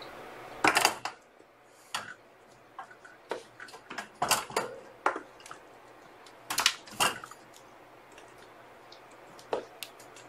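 Kittens climbing a wire pet playpen and stepping on the camera: irregular metallic clicks, knocks and rattles of the wire and the camera. The loudest cluster comes about a second in, with more around the middle and one near the end.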